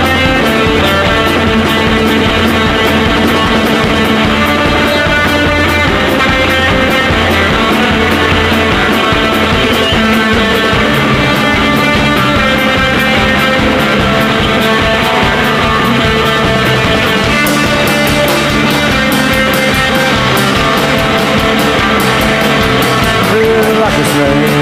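Rock band playing live at full volume: electric guitar, bass and drums in a passage without vocals. The drum and cymbal strikes come through more strongly over the last third.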